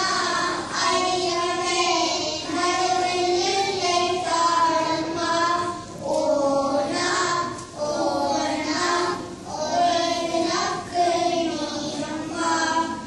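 A group of young children singing a song together, in phrases with short breaths between them.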